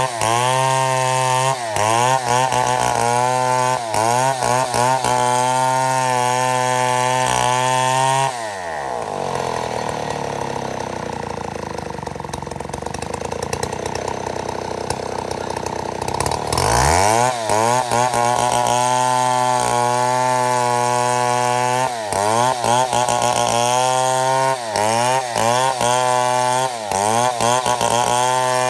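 Chainsaw milling a mahogany log, running at full throttle under load with brief dips in engine speed. About eight seconds in it drops to idle, then revs back up about eight seconds later and carries on cutting.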